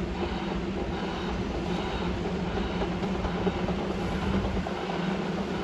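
Quadcopter drone's rotors running in a steady, even hum at one constant pitch, over a low rumbling rush of noise.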